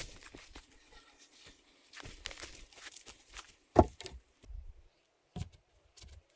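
Scattered rustling and light knocks of hands-on outdoor work, with one sharp, loud knock nearly four seconds in and a smaller one a second and a half later.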